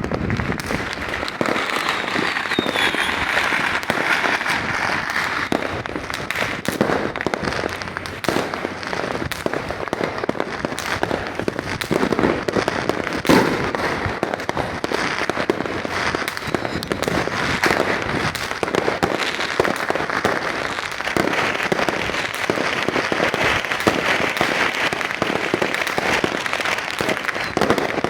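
Fireworks and firecrackers going off in a dense, unbroken barrage of bangs and crackling.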